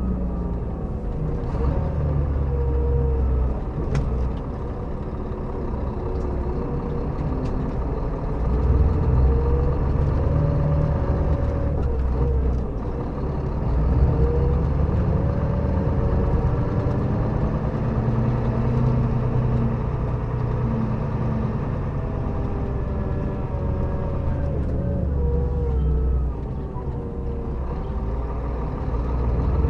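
Scania K400B coach's diesel engine running on the road, its note rising and falling several times as the bus speeds up and eases off.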